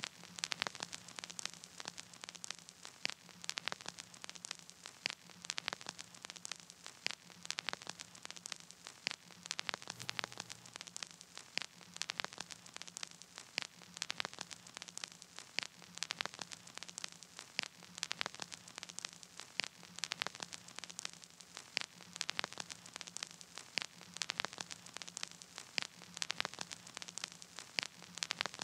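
Crackling static with no music: irregular sharp clicks and pops over a faint hiss and a steady low hum.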